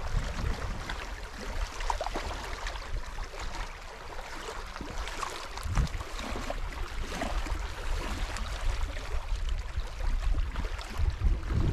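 Small waves lapping and washing over a rocky lakeshore, under a steady low rumble of wind on the microphone.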